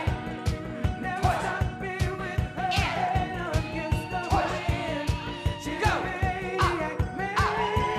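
Upbeat pop song with a singing voice over a steady, driving dance beat.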